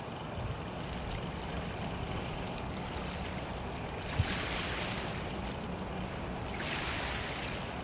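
Wind buffeting the microphone over open water, a steady low rumble with two louder rushes of hiss, one about four seconds in and one near the end, and a single light knock just after the first.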